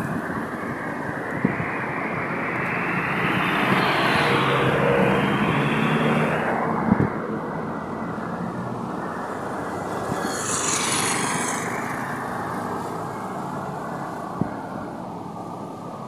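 Street traffic and road noise heard from a moving vehicle: a steady rumbling haze that swells between about three and six seconds in, with a short hiss about ten seconds in and a few light knocks.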